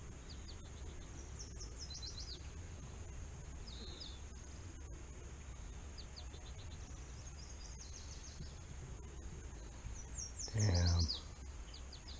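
Songbirds chirping in quick runs of short falling notes, repeated every second or two, over a faint low rumble. Near the end a man makes one short low hum, the loudest sound.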